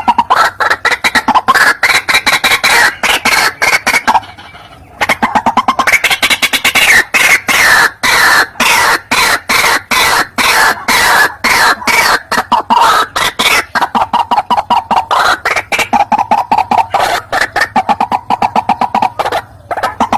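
White-breasted waterhen calling: a fast, unbroken run of harsh repeated notes, several a second, with a short lull about four seconds in.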